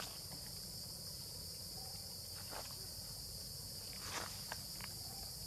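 Steady, high-pitched chorus of insects, with a few faint short rustles about halfway through and near the end.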